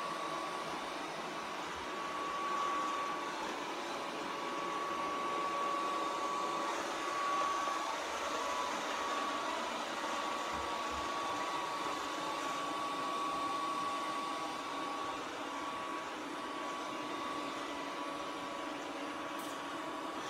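Robot vacuum cleaner running: a steady whirring with a constant high-pitched whine over it.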